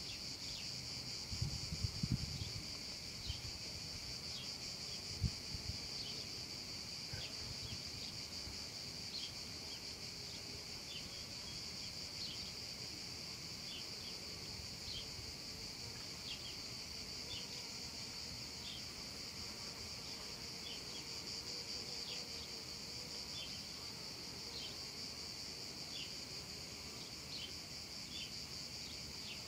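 Cicadas singing in a steady, unbroken high buzz, with short chirps repeating over it about once or twice a second. A few low thumps come in the first few seconds, the loudest about five seconds in.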